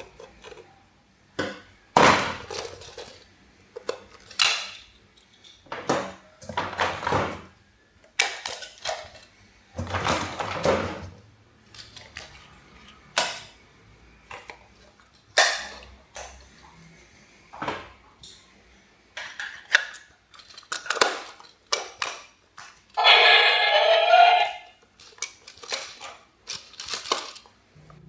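Hard plastic toys knocking and clattering in irregular bursts as they are handled. Near the end comes a brief, loud, wavering pitched sound.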